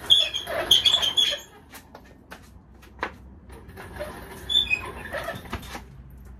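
Heavy steel engine hoist being shoved and dragged along the ground: short high squeaks from its wheels and joints mixed with metal knocks and scrapes, busiest in the first second and a half and again about four and a half to five and a half seconds in.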